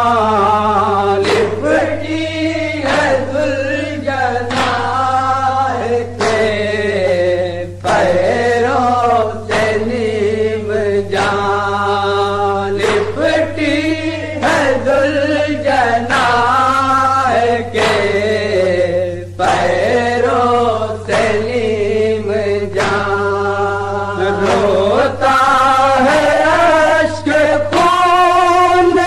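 Voices chanting a nauha, a Shia lament, in a slow, wavering melody. Sharp beats run throughout, over a steady low hum.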